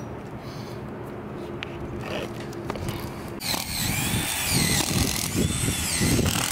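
Cordless drill drilling holes in the roof for the solar rail mounts: a steady hum for a couple of seconds, then from about halfway a louder, noisier run whose pitch rises and falls as the trigger is worked.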